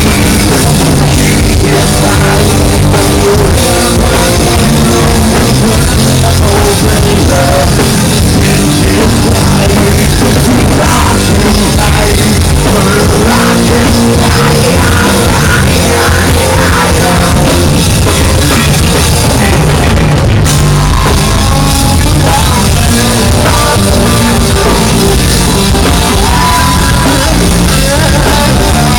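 Live rock band playing a song with a drum kit. It is recorded so close to the stage that the sound is loud and overloaded, pressed flat at full level.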